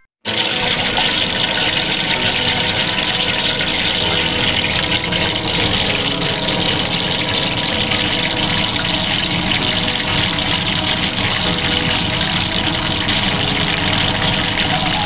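Breaded pork cutlet deep-frying in hot oil in a wok: a steady sizzle with fine crackling. It starts right after a brief gap at the beginning.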